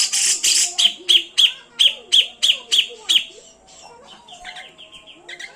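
Grey-cheeked bulbul (cucak jenggot) calling: a run of about nine loud, sharp notes repeated at roughly three a second, then a softer, quicker string of notes from about four seconds in.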